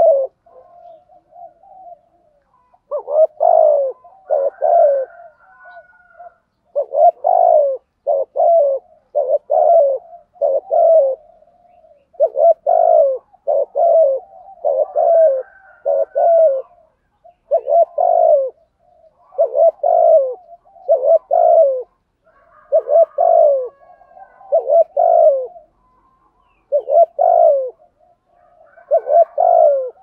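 Spotted dove cooing in the deep 'giọng thổ' voice, as Vietnamese keepers call it: phrases of a few low coos repeated about every two seconds with short pauses between them.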